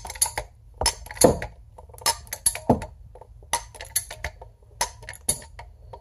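Hilmor compact hand-lever tube bender bending 5/8-inch soft copper tube: a run of irregular sharp metallic clicks from the squeezed lever mechanism, with a couple of short falling creaks as the tube is drawn around the die.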